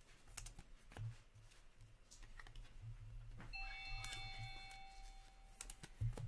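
Light clicks and rustles of trading cards and plastic card sleeves being handled, scattered near the start and again near the end. About three and a half seconds in, a faint ringing tone of several pitches sounds and fades out over about two seconds.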